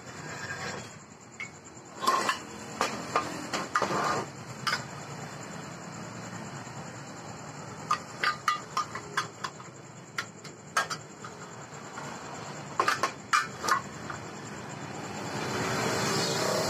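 Steel pieces knocking and clinking on a workbench as a steel tube, pipe and plate are handled and set in place, in several quick clusters of sharp metallic knocks. Near the end, the engine of a passing motor vehicle swells up.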